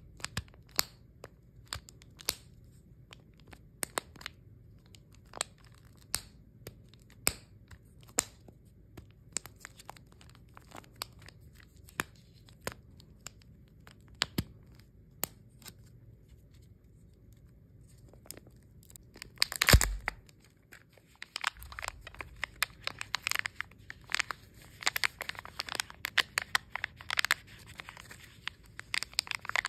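Long fingernails clicking on a plastic Kinder Joy egg and its wrapper, about one click a second. Two-thirds of the way through comes one loud crack, followed by a dense run of crinkling and tearing as the wrapper is torn off and the egg opened.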